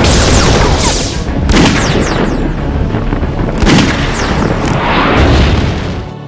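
Action-film explosion sound effects: a run of loud booms with high falling whistles, cut off abruptly near the end.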